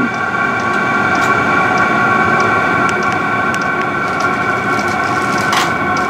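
Vevor diesel air heater running: steady combustion and blower noise with a high fan whine, and the fuel dosing pump ticking about twice a second at its low 1.7 Hz setting. The exhaust has no muffler fitted, and a single click sounds near the end.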